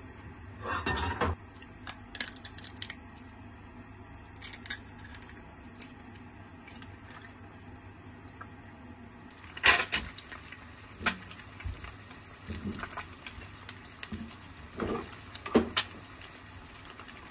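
Eggs cracked and dropped into an oiled frying pan: several sharp knocks and clinks, the loudest about a second in and about ten seconds in, with a faint sizzle setting in after the second.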